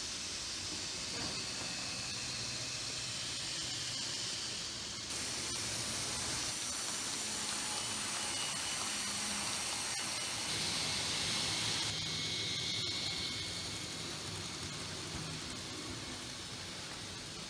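Steady hiss with faint thin high whines from Z-scale model trains running on the layout. The background changes abruptly twice, about five and twelve seconds in.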